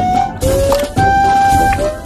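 Background music: a melody of held, pure-toned notes that step up and down over a steady beat.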